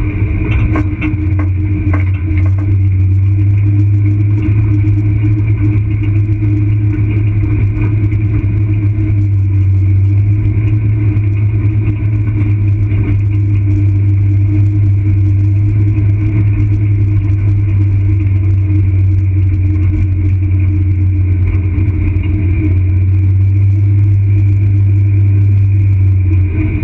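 A vehicle's engine running at steady revs while driving over a gravel dirt road, with tyres crunching on the gravel. There are a few sharp clicks in the first couple of seconds.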